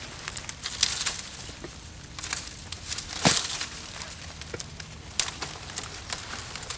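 Dry sticks and leaves rustling and crunching in irregular bursts.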